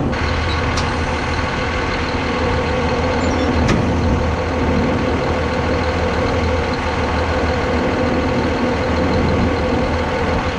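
Bateman RB26 self-propelled sprayer's diesel engine idling steadily, with a couple of faint clicks early on.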